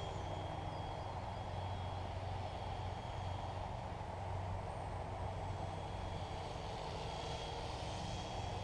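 Yu Xiang UH-1 Huey remote-control helicopter in flight: steady electric-motor and rotor hum with a faint high whine.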